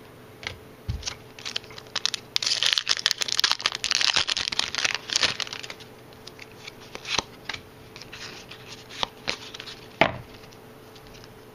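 Foil Pokémon booster pack wrapper being torn open and crinkled, densest for a few seconds in the middle, with scattered sharp clicks and rustles of cards and wrapper being handled before and after.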